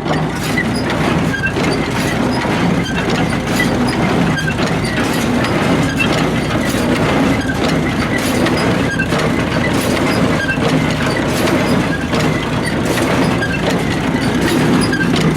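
International Harvester 47 hay baler driven by a tractor, its mechanism clattering and clanking steadily over the tractor engine's hum.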